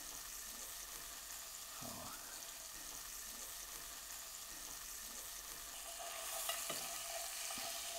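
Beef steak searing in butter and olive oil in a cast-iron pan: a steady sizzle that grows a little louder near the end, with a couple of light clicks.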